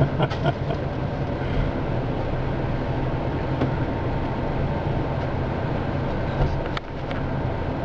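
4x4 engine idling steadily, heard from inside the cab, with a few light clicks and knocks in the first second and one more near the end.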